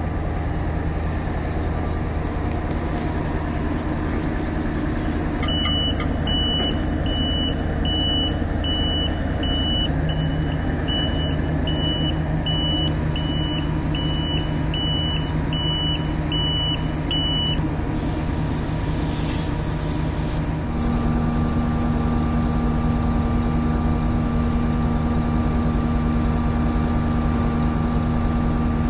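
Diesel engine of a farm machine running steadily, with a reversing alarm beeping at an even pace for about twelve seconds, starting around five seconds in. A short hiss follows, then the engine note rises and holds higher.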